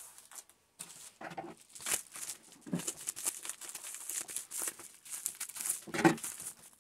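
Plastic packaging crinkling and rustling in irregular bursts as a white plastic mailer bag is handled and opened, with a louder knock about six seconds in.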